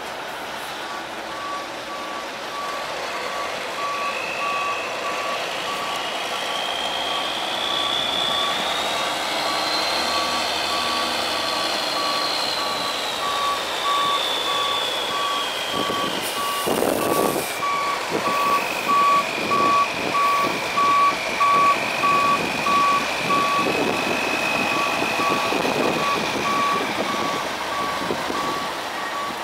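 Backup alarm on a 1995 Mack CH613 semi truck beeping steadily at one pitch as the truck reverses. Under it its Mack E-7 turbo diesel runs, with a whine that rises, falls, then holds steady.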